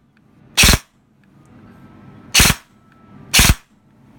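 G&G airsoft electric gun on full-auto, fired with quick trigger taps through its electronic FET trigger unit: three short, sharp shots, about a second in, past two seconds and about three and a half seconds in.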